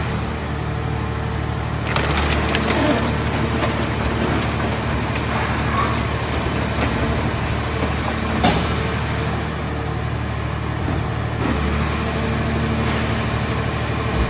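Portable car-shell baler at work: its engine and hydraulics run steadily while the scrap car body is crushed, with creaking and cracking of metal and one sharp crack about eight seconds in.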